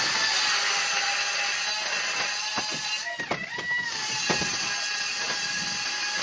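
A power tool running steadily with a fixed whine, the pitch sagging briefly about three seconds in as if under load, with a few knocks over it.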